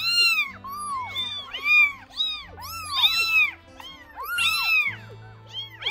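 Several kittens meowing over and over, short high calls that rise and fall and often overlap.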